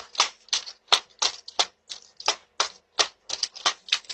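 Pogo stick bouncing on a driveway: a rapid run of short clacks, about four or five a second, heard through a doorbell camera's microphone.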